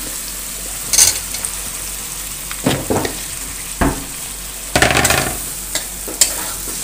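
Tomato-onion masala sizzling in a steel kadhai while boiled potato pieces are tipped in. A series of short knocks and scrapes comes from the spoon and bowl against the pan, the longest scrape about five seconds in.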